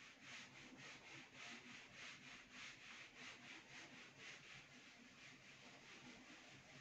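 Faint strokes of a marker pen on a whiteboard as writing goes on: short rubbing strokes, two or three a second.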